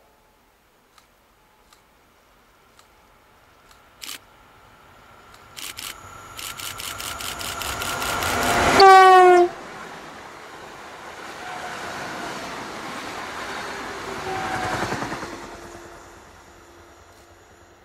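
Newag Impuls electric multiple unit approaching at speed and passing close by: a rising rush with a fast rhythmic clatter of wheels, then a short horn blast as it passes, its pitch dropping, before the noise fades away behind it.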